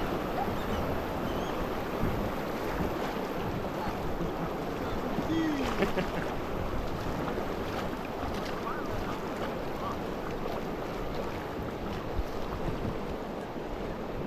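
Steady rush of river water flowing around a raft on the water.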